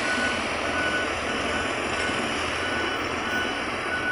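XCMG motor grader's diesel engine running steadily as the machine works over loose gravel, an even, unbroken machine noise.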